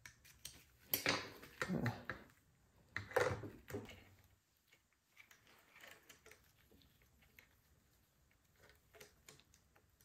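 Steel saw chain clinking and rattling as it is fitted by hand around the clutch sprocket and guide bar of a chainsaw: a few louder clatters in the first four seconds, then faint scattered clicks.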